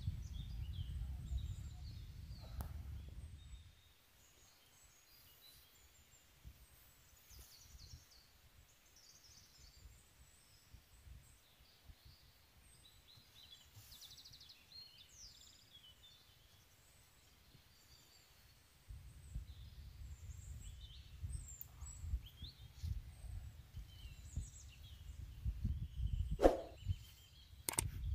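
Small birds chirping and twittering now and then, with a low rumble of wind on the microphone at the start and again through the second half. A few soft knocks near the end.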